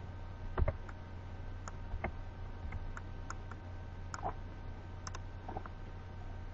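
Faint computer mouse and keyboard clicks, a dozen or so at uneven intervals, over a steady low hum.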